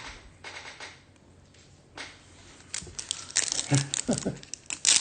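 Trading-card pack wrappers crinkling and cards being handled, a dry crackly rustle that grows busier and louder in the second half.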